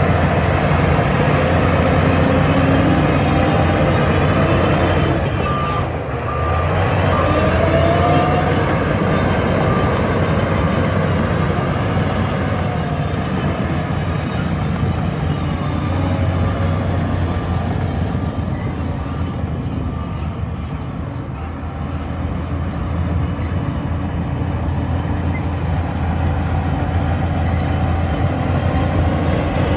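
Heavy diesel engine of a Shantui bulldozer running steadily under work. About six seconds in, a reversing alarm beeps several times.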